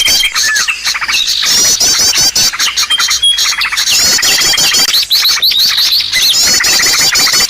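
Bird-lure recording of small songbirds calling: a dense, loud chorus of high chirps, with runs of rapid twittering notes repeating every second or two over a steady high whistle.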